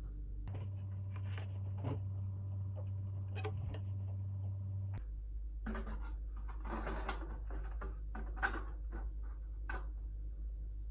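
Light scratching and tapping handling noises over a steady low hum, busiest about six to eight seconds in, with one sharp click near the end of that stretch.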